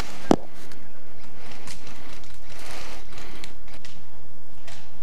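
Mechanical clicking from a TAC-41A bolt-action airsoft sniper rifle being cycled between shots: one sharp click about a third of a second in, then a few fainter clicks and some rustling of handling.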